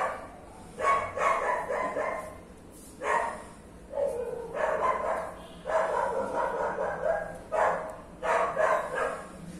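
Short, high-pitched vocal calls, about ten of them, coming in irregular bursts; a few are drawn out and one falls in pitch about four seconds in.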